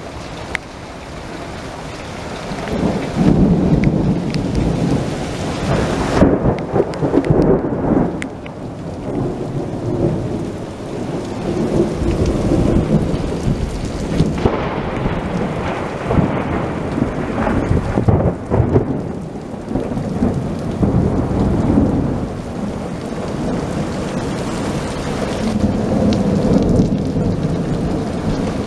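Heavy thunderstorm: rain pouring down in strong gusting wind, with a loud low rumble that swells from about three seconds in and rises and falls in waves.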